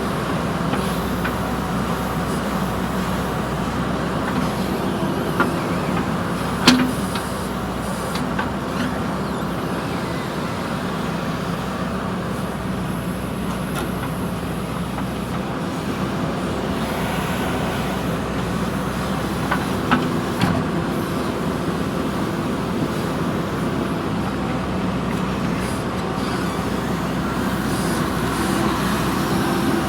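JCB backhoe loader's diesel engine running steadily while it digs, with a few sharp knocks: one loud knock about seven seconds in and two more around twenty seconds.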